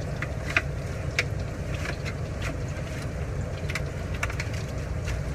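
Hot cooking oil bubbling and sizzling steadily as oversized French fries deep-fry, with scattered sharp pops and crackles.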